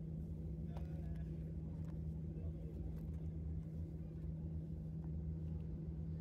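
Steady low drone inside an airliner cabin: the even hum and rumble of the aircraft's engines and air systems, heard from a passenger seat.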